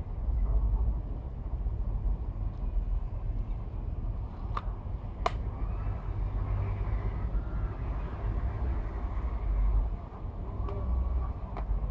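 A few sharp plastic clicks from hands handling an HP 19BII calculator's clamshell case: two close together about halfway through and two more near the end, over a steady low rumble.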